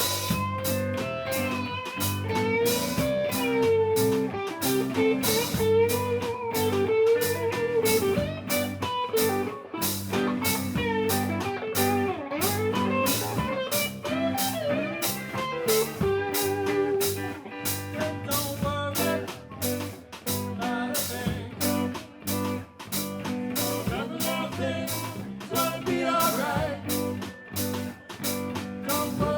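Guitar-led music with a bluesy feel: a wavering melody line over steady low notes and a regular strummed or drummed beat.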